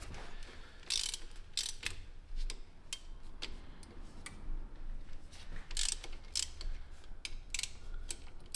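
Hand socket ratchet clicking in short, irregular runs of ticks while loosening differential cover bolts.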